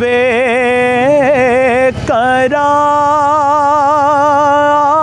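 A man singing a naat unaccompanied. He draws out one word in a wavering, ornamented line, breaks briefly, then holds a long steady note from about halfway through.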